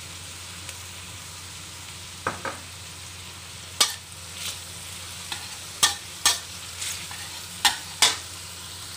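Pork and shrimp sizzling in soy sauce and oyster sauce in a stainless steel wok while a metal spatula stirs them, its edge scraping and clinking sharply against the wok about seven times, mostly in the second half.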